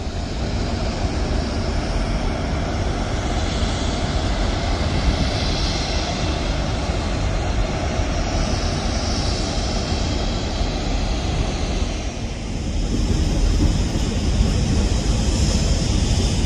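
Steady jet-like roar of an oil refinery, with a heavy low rumble and a hiss that swells and fades a few times.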